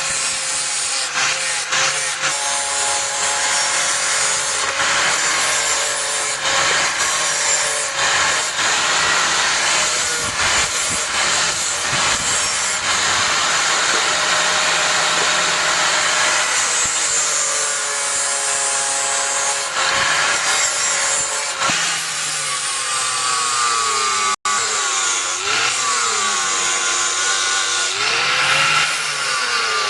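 A power grinder grinding steel with a continuous rasping, its motor tone sagging and recovering as it is pressed into the work, most plainly in the last few seconds. There is a momentary break near the end.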